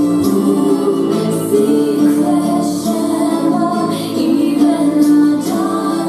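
A pop song with a female singer, played as the backing track for a stage dance.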